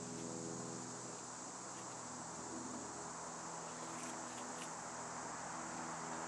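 Steady chirring of insects in woodland, with a few faint clicks about four seconds in as paracord is handled.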